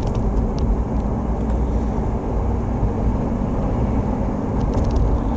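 Steady road noise heard from inside a Jeep Wrangler JKU cabin on a wet concrete road: the low drone of new knobby Goodyear tires mixed with the engine running.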